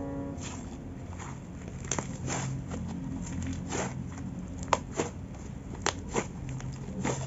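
Floam slime, clear-glue slime packed with tiny sand-like foam beads, being stretched and squeezed by hand, giving irregular crackles and a handful of sharper pops as the beads and air pockets squash.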